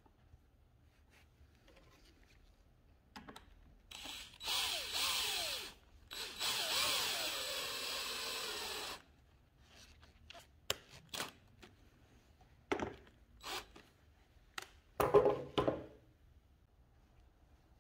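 Cordless drill-driver driving a screw into a small wooden block in two runs, the motor's pitch falling as the screw bites. Afterwards come scattered sharp clicks and knocks, the loudest cluster near the end.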